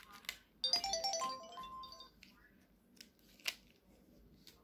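A Samsung flip phone's speaker playing a short electronic jingle of quick notes that ends on a held tone, just after a click as the phone is handled. Two sharp plastic clicks follow in the second half.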